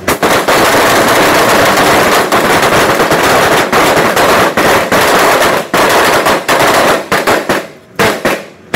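Rapid, overlapping rifle fire from a firing line of M4 carbines, dense and echoing under the range roof, thinning to a few separate shots near the end.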